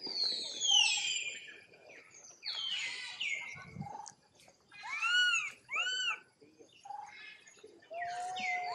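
High-pitched animal calls: a few clear falling cries and two short rising-and-falling calls, with a longer held tone near the end.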